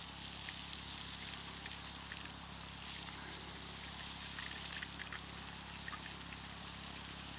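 Steady hiss of water spraying from an irrigation hose outlet onto vegetable beds, with a few faint ticks.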